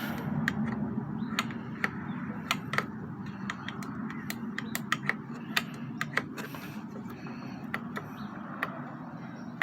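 Irregular sharp metal clicks and taps from hand tools and parts being handled on a lawn mower engine, over a steady low hum.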